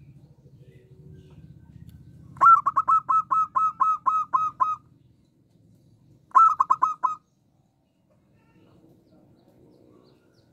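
Zebra dove (perkutut) singing: a run of about ten quick, evenly spaced staccato cooing notes, then a short run of about four notes a second and a half later.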